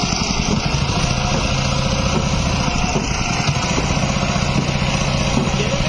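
An engine running steadily with a fast, even pulse. Voices rise over it near the end.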